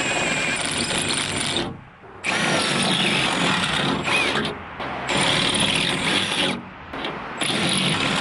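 Power drill running in four bursts of about two seconds each, with a high whine, its bit cutting into the sheet metal of a car's trunk lid to enlarge bolt holes.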